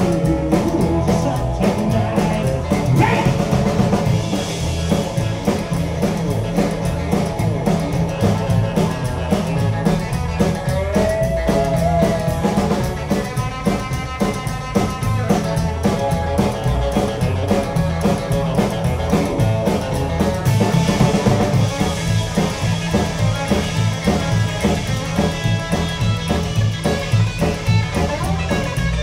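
Live rock'n'roll band playing an instrumental passage: upright double bass, drum kit with a steady beat, strummed acoustic guitar and electric lead guitar.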